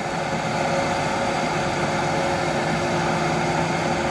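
Butane gas torch flame burning steadily, a constant rushing hiss with a faint hum, heating a copper gasket red-hot to anneal it.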